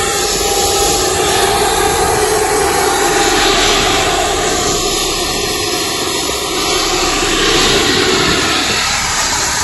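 Aircraft engine running steadily, a loud even noise with no breaks.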